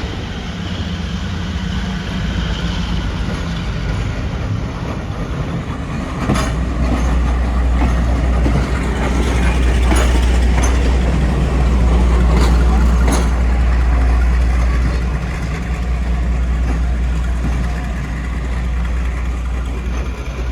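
Class 42 Warship diesel-hydraulic locomotive running into a platform, its deep engine rumble growing louder about six seconds in and loudest midway. A few sharp clicks come through as it approaches.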